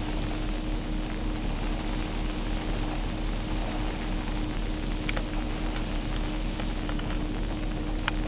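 Hurricane-force wind blowing steadily, with a low rumble of wind buffeting the microphone and a constant hum under it; a few faint clicks about five and eight seconds in.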